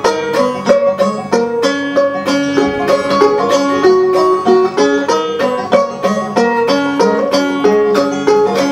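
Live acoustic folk instrumental: a banjo picking a quick, even pattern over a strummed acoustic guitar.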